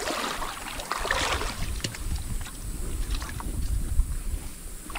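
River water sloshing and splashing, with brighter splashes at the start and again about a second in, over a steady low rumble.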